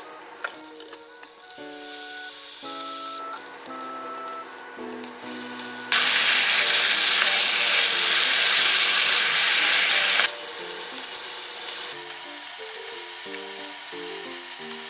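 Pork slices sizzling in a hot frying pan, first moderate, then much louder for about four seconds around the middle, when the meat is bubbling in its sauce, before dropping back. Light background music with a simple melody plays throughout.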